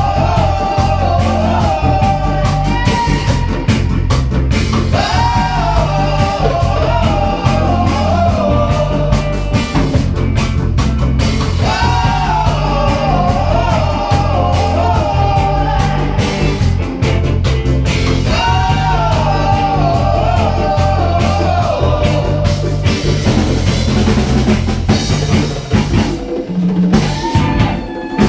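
Live band playing reggae-funk: a drum kit with rimshots over a heavy bass line and guitar, and a melody phrase that comes back about every six seconds. The drums and bass drop back near the end.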